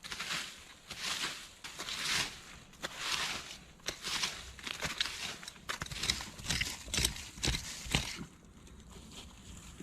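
Rhythmic scraping or rustling strokes, about one a second, followed by several sharp knocks, after which the sound drops away.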